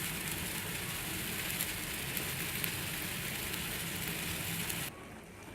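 Pot of ginger, lemongrass and cinnamon water simmering on a low stove flame: a steady bubbling hiss with a few faint ticks. It cuts off abruptly near the end.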